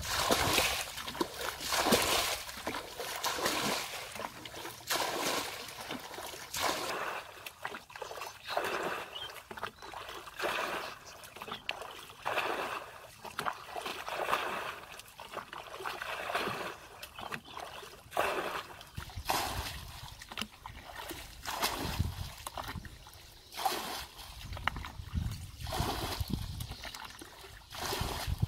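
Muddy water being bailed with a plastic bucket: repeated scoop-and-pour splashes and sloshing, about one every second or so, as a shallow muddy pool is emptied.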